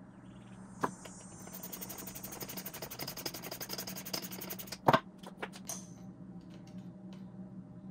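Ratchet wrench clicking rapidly and evenly for about three seconds while nuts on the overdrive's adapter plate are run down. Then one loud knock as the heavy overdrive housing is stood on end on the workbench, followed by a few light metal clicks, over a faint steady hum.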